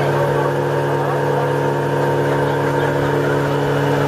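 A boat's motor running steadily underway, an even drone holding one pitch throughout.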